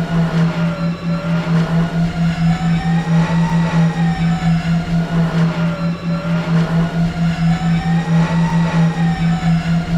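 Jedi starfighter exterior engine sound effect, played as a loop. A steady low hum throbs several times a second under a higher whine that slowly rises and falls, repeating about every five seconds.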